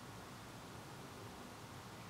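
Faint steady hiss of room tone, with no distinct handling sounds.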